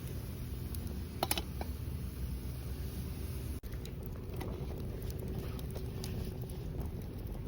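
Wood campfire crackling: scattered sharp pops, the loudest cluster about a second in, over a steady low rumble.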